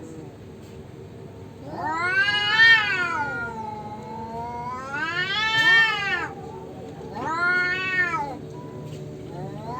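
Tomcats caterwauling at each other in a territorial standoff: three long, wavering yowls, each rising and then falling in pitch.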